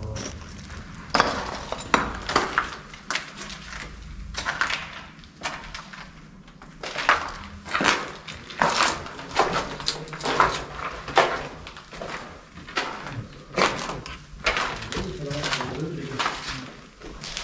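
Footsteps crunching over a debris-strewn floor, an uneven walking pace of about one or two steps a second.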